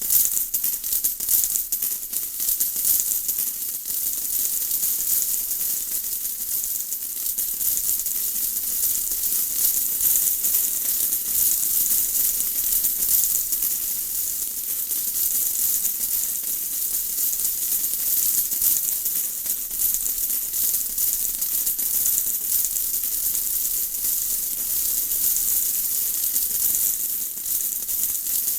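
Steady rain falling: a dense patter of many small drops over an even high hiss.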